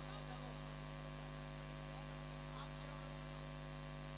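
Steady electrical mains hum from the public-address sound system while no one is speaking into it, with faint voices in the background about halfway through.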